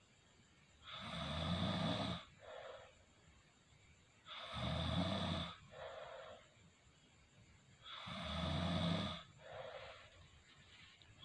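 Snoring in a regular rhythm: three loud snores about three and a half seconds apart, each followed by a shorter, softer breath.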